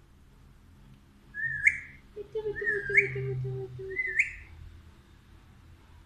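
Alexandrine parakeet whistling: three short rising whistles about a second apart, each ending in a sharp upward flick.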